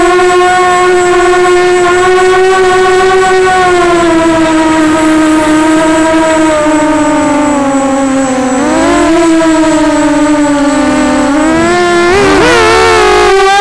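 Walkera Runner 250 quadcopter's brushless motors and propellers whining, heard through its onboard camera. The pitch follows the throttle: it sags slightly in the middle, jumps up, then wavers rapidly up and down near the end during hard manoeuvring.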